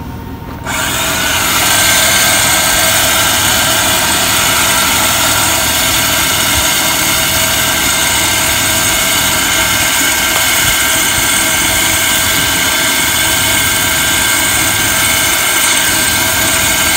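Portable capstan hoist starting up abruptly about a second in, then its motor running steadily as it hauls the rope and load up the tower.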